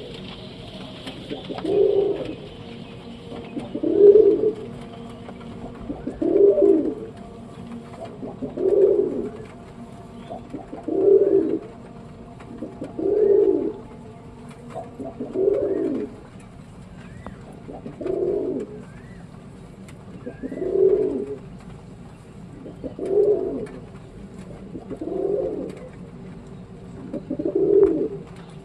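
Domestic pigeon cooing, a low coo repeated at an even pace about every two seconds.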